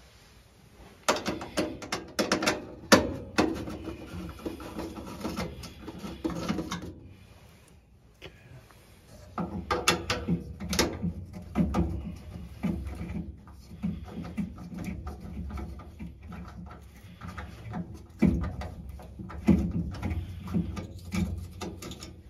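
Hands working on a gas furnace's draft inducer motor assembly: irregular clicks, knocks and scraping of metal parts, in three spells separated by short pauses.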